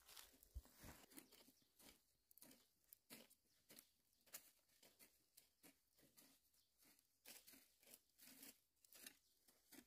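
Faint, irregular crunching and crackling of dry grass and stubble underfoot as someone walks.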